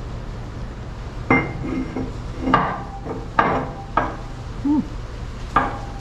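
A machined metal ring knocking and clinking against a bore as it is test-fitted by hand, about five sharp ringing knocks, over a steady low hum.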